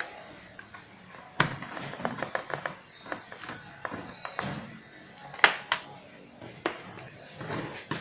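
Small screws being backed out of a pedestal fan's motor housing with a hand screwdriver: scattered clicks and taps of metal and plastic, the sharpest about one and a half and five and a half seconds in.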